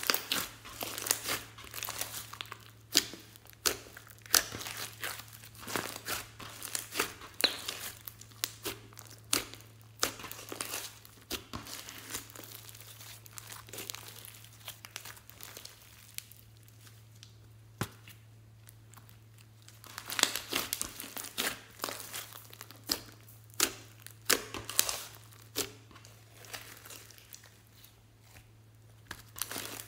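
Hands squishing and stretching a thick, bead-filled slime, giving dense crackling pops and sticky tearing sounds. The pops come thickly from about a second in to about 12 s and again from about 20 to 25 s, with sparser, quieter squishing between. A low steady hum runs underneath.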